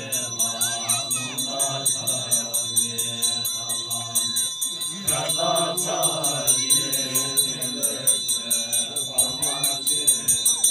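Chanting voices over a fast, steady jingling bell rhythm of about four strokes a second.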